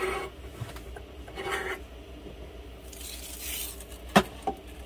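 Glass lid being taken off a frying skillet and handled: a soft scrape, a short hiss, then two sharp clinks near the end.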